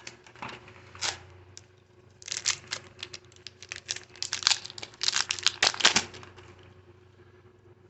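Foil wrapper of a baseball card pack being torn open and crinkled: a run of quick, sharp crinkling rips, thickest in the middle, then fading out.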